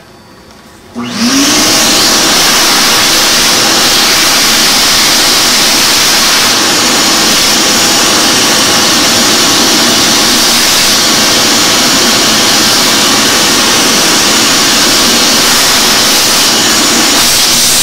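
Vacuum cleaner switched on about a second in, its motor spinning up with a short rising whine and then running loud and steady, sucking up the excess putty being scraped off the leaded glass.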